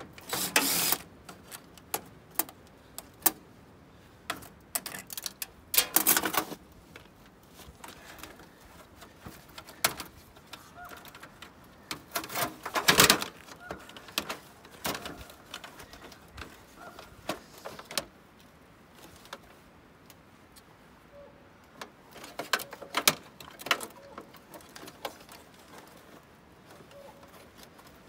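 Scattered clicks, knocks and rattles of a dryer's sheet-steel panels and plastic control parts being handled and taken apart by hand, with the loudest cluster of knocks about halfway through.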